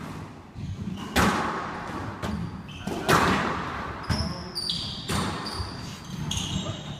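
A squash rally: the ball is struck by rackets and smacks off the court walls in a string of sharp hits, the loudest about a second in and about three seconds in. Short, high squeaks of court shoes on the wooden floor come after the fourth second.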